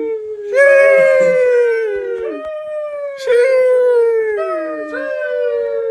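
A dog howling: several long howls in a row, each sliding slowly down in pitch, some overlapping.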